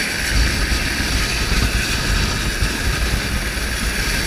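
Helicopter hovering close overhead: steady, loud rotor and engine noise, with the rotor downwash buffeting the microphone.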